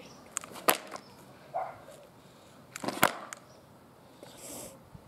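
Skateboard clacking on asphalt as the rider tries to pop it: two sharp knocks about two seconds apart, about 0.7 s and 3 s in, with a few lighter taps around them.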